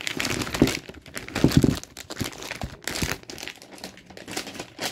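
Plastic wrapping of a stationery kit crinkling and rustling as it is handled and opened, with louder crackles about half a second in and again around a second and a half in.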